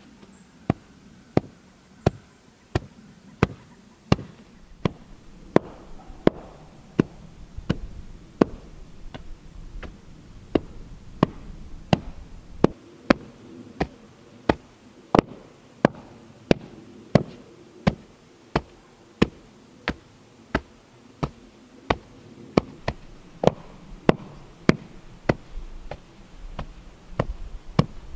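Homemade wooden hand tamper, a square wooden block on a long handle, pounding wet red clay in a footer trench. It gives a steady run of sharp thuds, about three strikes every two seconds, as the clay is compacted.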